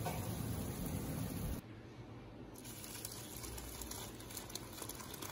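A pot of instant noodles boiling in broth, then, after a sudden drop in level about a second and a half in, quieter splashing as the cooked noodles and broth are poured into a steel bowl.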